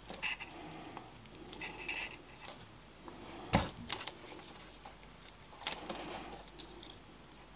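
Faint handling of motor lead wires and multimeter test-lead crocodile clips: a few small clicks and scrapes, the sharpest about three and a half seconds in, with light rustling between them.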